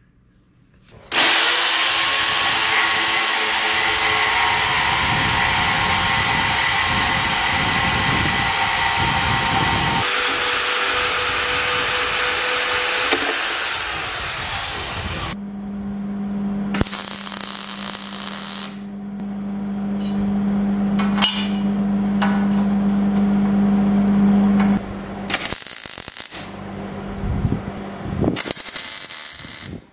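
Metal-cutting power tools, including a portable band saw cutting steel square tubing, run loud and steady through most of the clip. The band saw settles into a steady hum partway through. Several short bursts of MIG welding on the steel rails come near the end.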